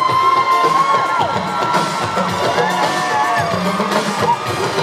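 Live synth-pop band playing, with the audience cheering and whooping over the music.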